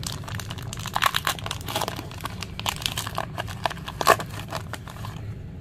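Pokémon card booster pack being torn open and handled: its crinkly foil wrapper crackles and rustles in an irregular run, with a few louder snaps about a second in, near two seconds and near four seconds.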